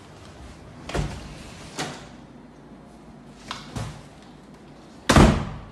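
A few scattered knocks, then a door slammed shut hard near the end.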